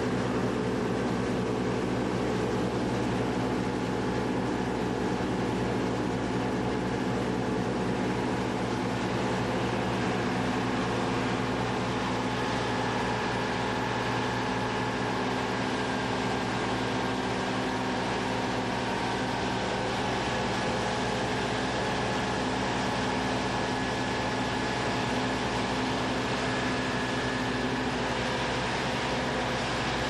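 Deutz-Fahr PowerLiner combine harvester running steadily while working, its engine and machinery giving an even drone. A faint higher whine joins about twelve seconds in.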